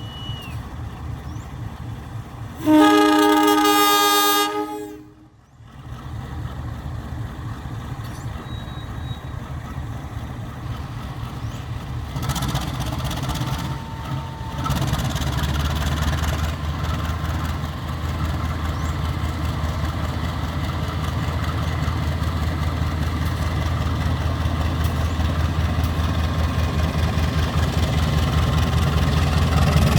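Diesel freight locomotive horn sounding one long blast of about two seconds, a few seconds in. After it the sound briefly drops away, then a steady low engine rumble runs on, growing a little louder toward the end.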